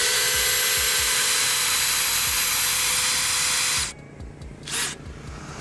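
DeWalt compact brushless cordless drill in low gear (speed setting 1) driving a screw into a block of hard gõ wood. The motor spins up and runs with a steady whine for nearly four seconds, then stops suddenly as the screw seats. A short blip follows about a second later.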